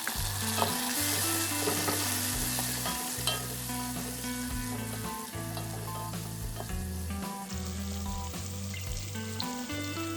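Food sizzling in hot oil in a pan while being stirred, with a few sharp clicks of the spatula against the pan.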